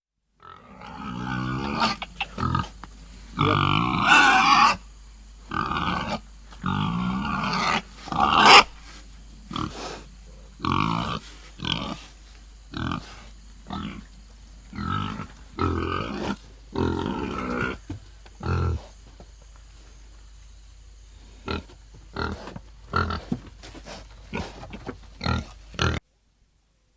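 Farm animal calling over and over: a long run of separate calls, some long and drawn out in the first few seconds, then shorter and more spaced out, stopping about a second before the end.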